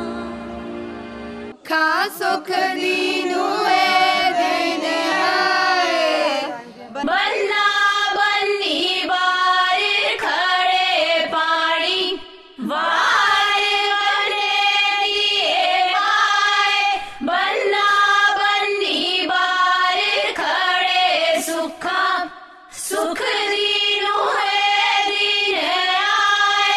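Background song: a held chord, then a solo singing voice comes in about two seconds in, with long sliding, ornamented phrases over the accompaniment.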